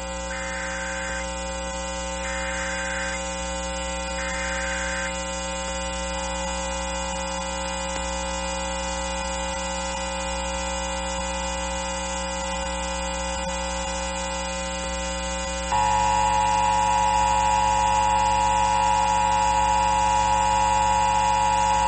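Emergency Alert System tones over a steady hum. Three short, faint bursts of header data sound in the first five seconds. A fainter steady tone follows from about six to fourteen seconds, then about sixteen seconds in the loud two-tone EAS attention signal starts and holds steady.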